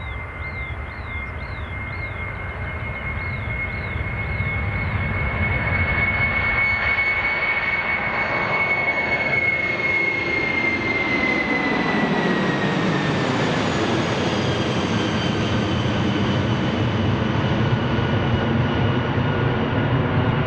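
Boeing 707 jet engines at takeoff power passing by: the roar grows louder over the first few seconds, and a high whine holds steady, then drops in pitch about twelve seconds in as the aircraft goes past, with the loud roar continuing.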